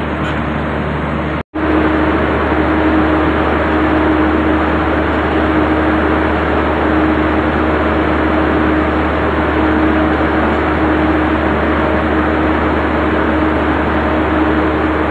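Machinery running steadily with a constant drone and hum, cut off for an instant about a second and a half in.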